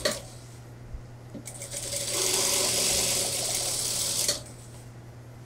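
Industrial single-needle sewing machine stitching a suit sleeve. After a sharp click at the start, it sews in one run of nearly three seconds from about a second and a half in, coming up to speed quickly and stopping abruptly. A low steady hum lies under it throughout.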